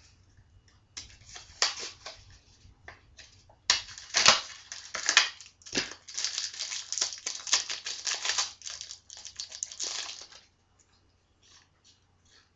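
Foil booster-pack wrapper crinkling and rustling in irregular bursts as it is handled and torn open, dying away about ten seconds in.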